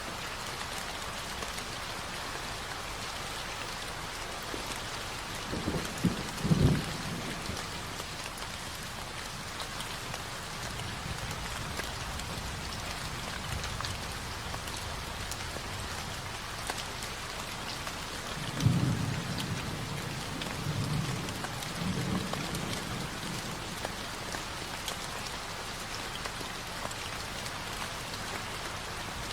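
Steady rain falling, with low rolls of thunder rumbling about six seconds in and again for a few seconds from about nineteen seconds in.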